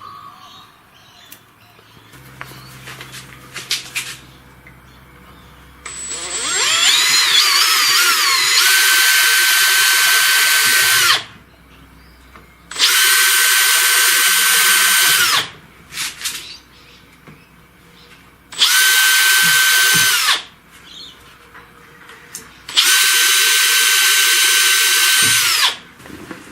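Handheld power drill running in four bursts as it cuts a large hole in a 3D-printed PLA part: a steady high-pitched motor whine that spins up over about two seconds on the first, longest run, with short pauses and light handling knocks between runs.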